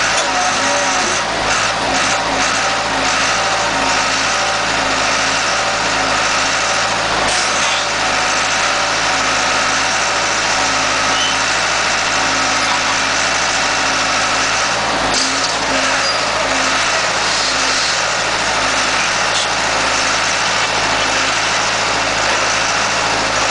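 Horizontal mobile scrap-metal baler running steadily while baling scrap steel, its engine noise carrying a note that pulses on and off about once a second. A few short knocks come in the first few seconds.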